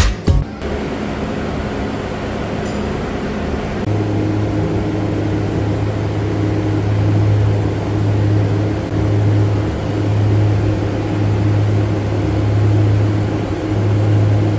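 TIG welding on stainless steel plate: a steady electric buzz with a low mains-type hum that strengthens about four seconds in and then holds.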